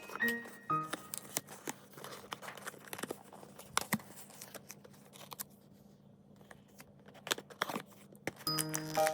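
Packaging being handled and opened by hand: a run of crinkling, tearing and sharp clicks. Background music stops about a second in and comes back near the end.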